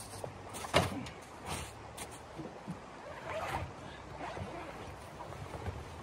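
A padded gear bag set down on icy, crusted snow with a sharp thump about a second in, followed by scattered knocks, rustling and crunching as it is handled.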